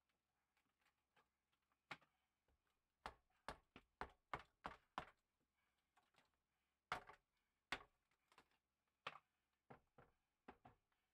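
Hammer knocking, sharp separate blows: a quick run of about seven, then single knocks spaced out about a second apart.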